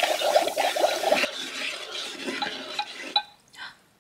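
Plastic wand stirring fizzing liquid in a Magic Mixies toy cauldron: a busy scraping, fizzing sound for about the first second, then fading. Near the end come a few light taps from the cauldron, its signal that the stirring step is done.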